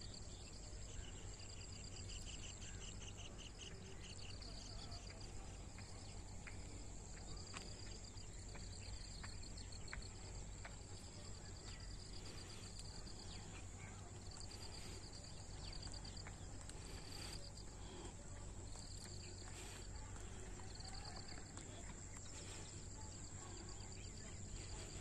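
Insects calling in a field: a steady high-pitched drone, with short pulsed trills repeating every second or two, over a low steady rumble.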